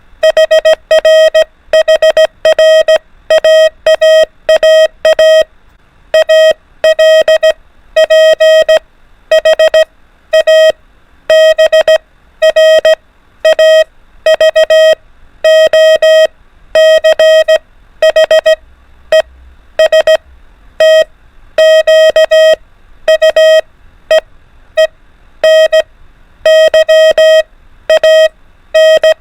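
Morse code tone keyed on and off in dots and dashes at 24 words per minute, a single steady mid-pitched beep sending letters of the alphabet in short groups separated by brief gaps.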